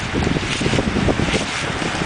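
Wind buffeting the microphone: a steady, loud, rough rumble and hiss, with surf on the beach mixed in underneath.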